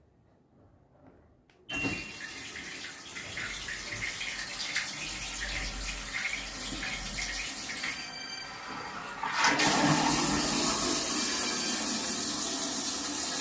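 Water rushing in an electronic toilet worked from its remote control. It starts suddenly about two seconds in and grows louder at about nine and a half seconds.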